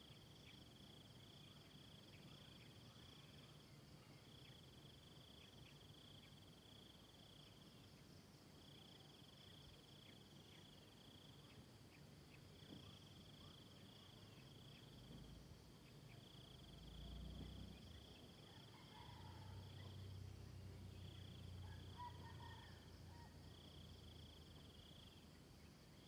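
Faint insect chorus: a steady high trill that runs in phrases of about two seconds with short breaks between them. A low rumble swells in the second half, along with a few faint chirps.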